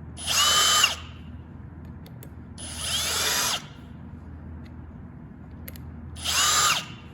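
Cordless drill driving screws into a fertilizer pump head assembly: three short runs of the motor whine, the middle one the longest, working around the ring of screws.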